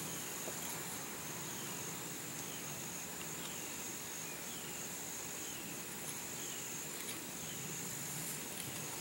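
Steady high-pitched insect chorus, with a short falling chirp repeating more than once a second from about three seconds in.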